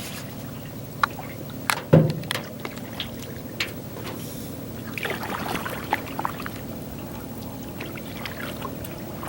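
Water trickling and lapping around a canoe on a lake, with a few sharp knocks, the loudest about two seconds in.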